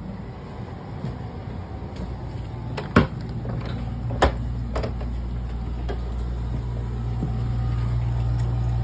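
Steady low hum of a running Marinaire marine air conditioner, with a few sharp knocks about three and four seconds in.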